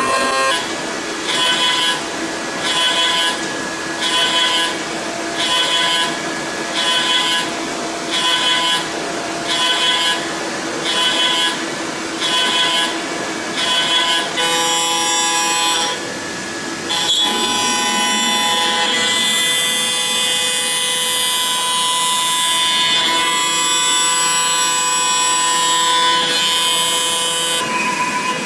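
CNC vertical machining center milling AL6061 aluminium. For the first half a ø32 cutter at 8,000 rpm rough-cuts with a cutting sound that swells about once a second. About fourteen seconds in it changes to a ø10 flat endmill at 10,000 rpm, which cuts with a steady whine.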